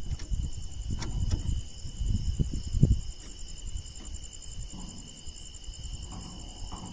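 Crickets trilling steadily in several high, unbroken tones, one with a fast pulse. In the first three seconds there are low rustles and knocks, the loudest near the end of that stretch.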